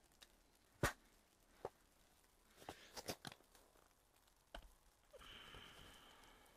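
Faint, scattered clicks and knocks of a battery lantern being handled at the roof hub of a fabric pop-up ice shack, the sharpest about a second in and a quick cluster around three seconds, followed near the end by a brief rustle.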